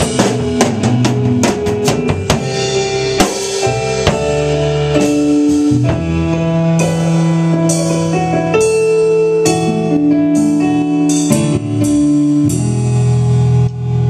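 Drum kit and Korg electronic keyboard playing a song together with no singing: held keyboard chords change every second or so over steady drum hits, with a quick run of drum strokes at the start.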